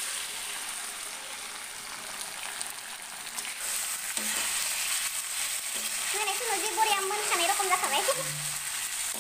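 Chicken pieces with onion and spices sizzling in oil in a metal kadai while a spatula stirs them. The sizzle starts suddenly and grows a little louder a few seconds in.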